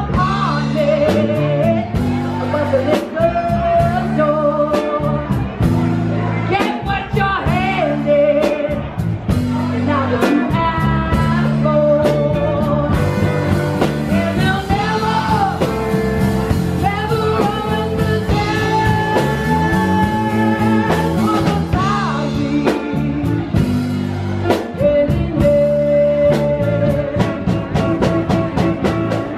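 Live band playing a song: a woman sings lead over electric guitar, electric bass and a drum kit keeping a steady beat.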